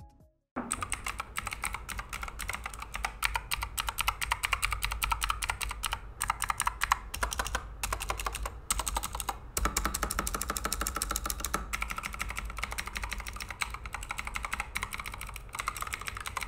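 Fast typing on a LESHP budget mechanical keyboard with blue switches: a dense, continuous run of sharp, clicky keystrokes that starts about half a second in.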